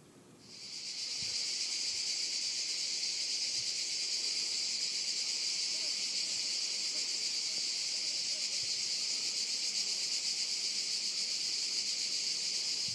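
Cicadas buzzing in a dense, steady summer chorus, fading up within the first second and then holding an even, high-pitched hiss-like drone.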